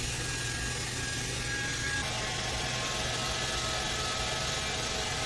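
Handheld hair dryer running steadily as it dries a freshly bathed whippet's coat; its hum shifts slightly in tone about two seconds in.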